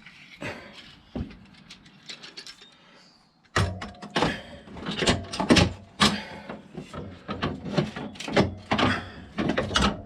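Irregular metal clanks, knocks and scrapes of hand work on an ATV's front drive shaft and hub, starting suddenly about three and a half seconds in after a few faint clicks.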